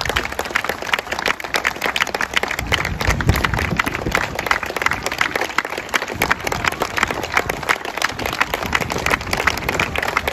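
A crowd of football supporters clapping their hands steadily, many hands at once, welcoming the team bus.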